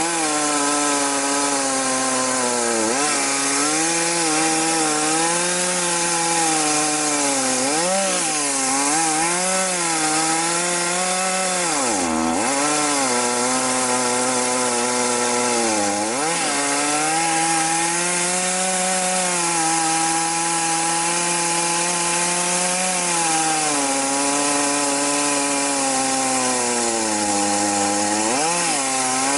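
Chainsaw ripping a log lengthwise in one long, continuous cut, the engine running at high revs. Its pitch sags and recovers several times as the cut loads it, most deeply about twelve seconds in.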